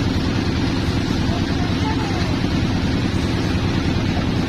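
Sawmill machinery running steadily: an engine with a low, fast-pulsing drone that holds even throughout.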